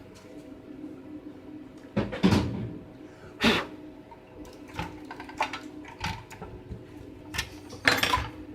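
Plastic clacks and knocks from handling an OmniKey Ultra keyboard's case as it is opened after its screws are out, with louder clusters about two seconds in, around three and a half seconds, and near the end.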